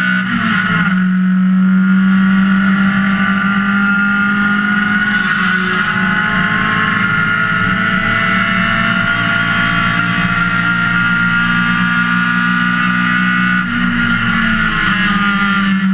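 Race car engine heard from inside the stripped, roll-caged cockpit, running hard at high revs. Its pitch drops once about a second in, as at an upshift, then holds steady for the rest of the straight with a slight rise near the end.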